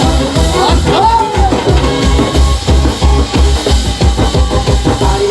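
Loud music with a steady, heavy drum-kit beat of about two beats a second.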